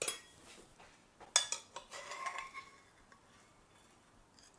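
A metal utensil clinking and scraping against a frying pan as a fried egg is worked loose and slid out of the pan: a few sharp clinks about a second and a half in, then a short ringing scrape.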